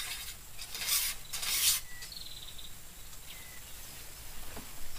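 Insects and birds calling over a swamp, with a short rapid trill about two seconds in. Two loud hissing bursts come about a second in.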